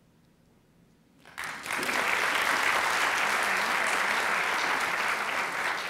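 Audience applauding, starting about a second and a half in after a brief near silence, then holding steady and beginning to fade near the end.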